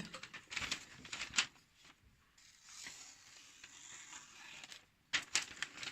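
Steel knife blade being drawn along a leather strop loaded with stropping compound: a few quick scraping, clicking strokes, a longer soft swish in the middle, then more quick strokes near the end.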